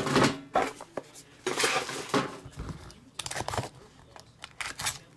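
Hands handling a small cardboard trading-card box and its cards: a run of clicks and knocks, with a longer scraping rustle about one and a half to two seconds in as the box is slid open.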